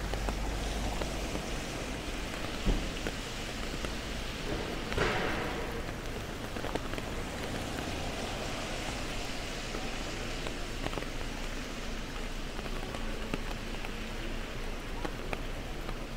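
Steady rain falling on a wet city street, an even hiss of drops and patter. There is a dull thump a little under 3 seconds in and a brief swell of hiss about 5 seconds in.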